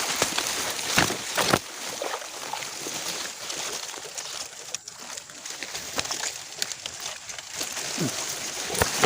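Water sloshing and splashing, with a few sharp knocks about a second in.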